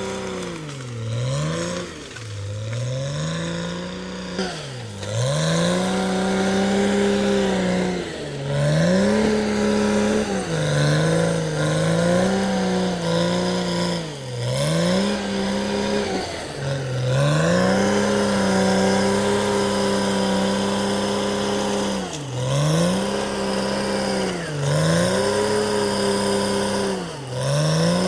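Caterpillar D6R XL bulldozer's diesel engine running hard, its pitch dropping sharply and climbing back again and again every few seconds as the machine works, with one longer steady stretch past the middle.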